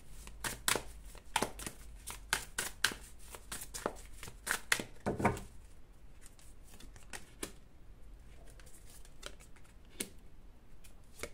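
Tarot cards being shuffled and handled, a run of irregular sharp card snaps and slaps.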